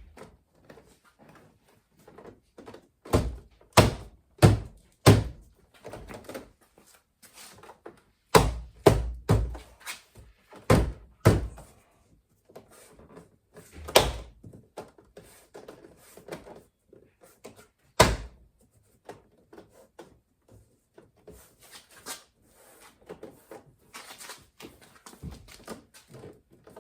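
A hand striking a Volvo XC70 rear door trim panel, a dozen or so hard thumps in quick groups, snapping the panel's plastic clip connectors into their holes in the door, followed by softer knocks and handling.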